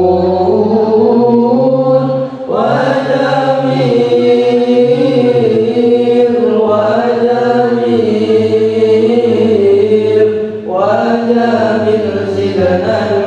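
Group of male voices chanting an Islamic sholawat devotional song together through microphones, in long, slowly moving melodic phrases. Each phrase is held for several seconds, with brief breaks about two and a half seconds and ten and a half seconds in as the next line begins.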